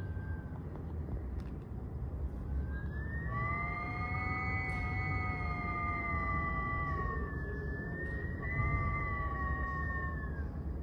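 Wind whistling through cracks: a high whistle of several steady pitches at once swells in a few seconds in, breaks off briefly past the middle, then returns and fades near the end, over a low rumble of wind.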